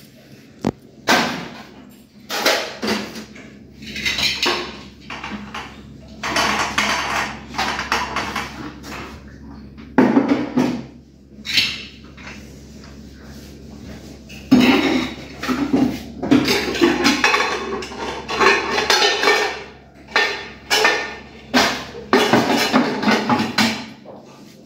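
Metal pressure cookers and pots clanking and clattering as they are handled and set down, in an irregular run of knocks, some of them ringing briefly.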